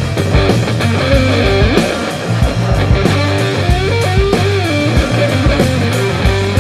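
Rock music with guitar over a steady beat and a moving bass line.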